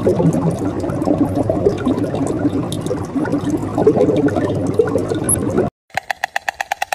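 Continuous crackly, bubbling gurgle like liquid bubbling, which cuts off suddenly near the end. Just after it a fast run of evenly spaced, pitched clicking pulses starts, about nine a second.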